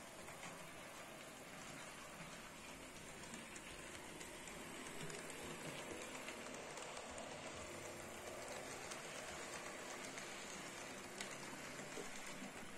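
HO-scale IHC/Mehano 4-8-2 Mountain model steam locomotive and its passenger cars running along the track, a faint steady rolling rattle of wheels on rails. It grows a little louder about halfway through, as the train comes close.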